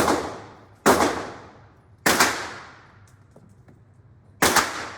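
Gunshots at an indoor range: a string of sharp cracks, one at the start, one about a second in, a close pair about two seconds in and another close pair near the end. Each crack rings on in a long echo off the range walls.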